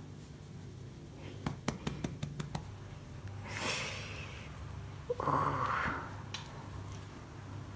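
Close handling sounds of a hand rubbing a cat's fur: a quick run of light clicks, then two breathy rushes of noise, the second louder, over a low steady hum.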